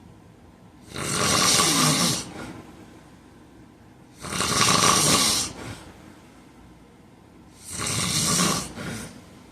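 A heavyset man snoring loudly in his sleep: three long snores about three seconds apart, the last followed by a shorter, softer one.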